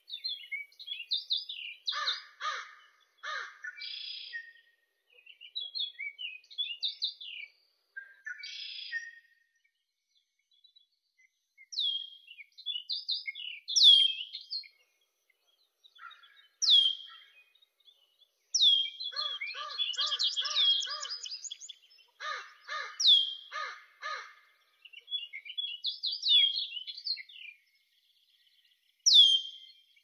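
Songbirds chirping and singing in bursts with short pauses between them: quick downward-sliding whistled notes and fast trills.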